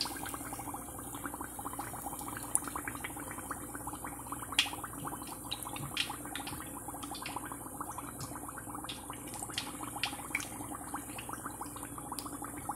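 Turkey wings deep frying in hot oil: a steady sizzle with many small irregular pops and crackles.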